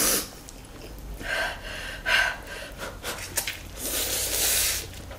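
Two people slurping spicy Korean fire noodles and drawing sharp breaths: a few short slurps, then a longer one near the end.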